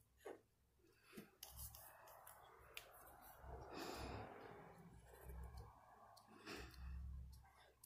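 Very faint taps and scratches of a Posca paint marker drawing short strokes on paper, with soft low bumps from hands and paper on the desk.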